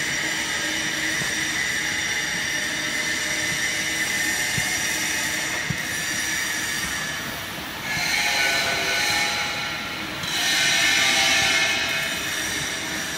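Hydraulic wood-shavings baling press running with a steady, high-pitched machine whine. The whine grows louder about eight seconds in and again from about ten and a half seconds.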